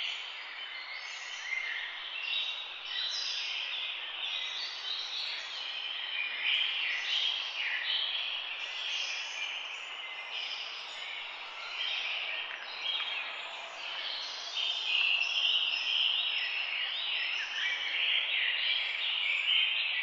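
Dense chorus of many small birds chirping and calling at once, short overlapping calls that keep up without a break.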